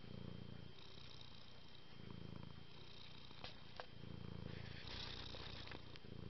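Tabby cat purring, a low rumble that swells and eases with its breathing about every two seconds, with two short clicks a little past the middle.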